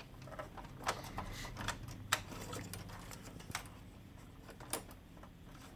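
A few scattered sharp plastic clicks and taps as a new separation pad is fitted into a laser printer's tray 1, over a faint low hum.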